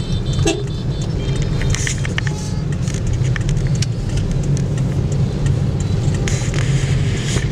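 Heavy motor-scooter traffic: many small motorbike engines running together as a steady low rumble, with a few short high-pitched tones in the first second or two.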